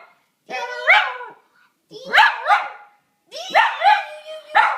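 Pet dog making weird vocal noises in response to a person: three drawn-out, bark-like calls that bend up and down in pitch, each lasting about a second.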